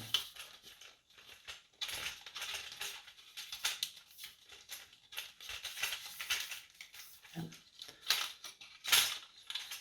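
Aluminium tripod legs being handled and extended: plastic flip-lock clips clicking and the leg tubes sliding and rattling, in a string of irregular clicks and short scrapes.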